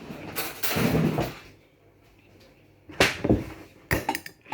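Eating instant pancit canton noodles: a noisy slurp for about the first second and a half, then a few sharp clicks and smacks about three seconds in.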